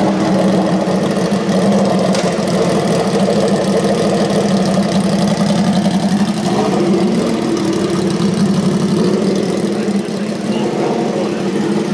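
Brand-new Norton motorcycle engine running at idle on its very first start after assembly, steady and loud, with a slight change in note about halfway through as the bike is eased onto the rolling road.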